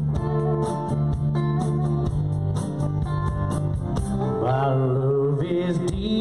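Live country band playing an instrumental break: a lead guitar plays over rhythm guitar, bass and a steady cymbal beat. About four and a half seconds in, a bending, wavering lead line comes in.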